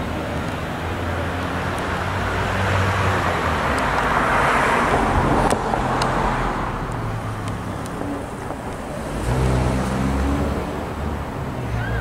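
Road traffic: a vehicle passes with a rushing tyre-and-engine noise that swells to a peak about halfway through and fades. A low engine hum swells again near the end.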